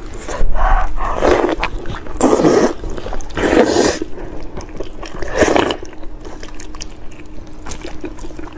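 Wet, squelching sounds of a sauce-soaked braised pork joint being torn apart by hand and bitten and chewed close to the microphone, in several separate wet bursts.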